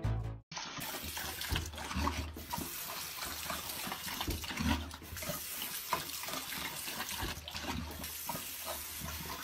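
Bathroom tap running into a sink, a steady rush of water with small irregular splashes as a dog drinks from the stream.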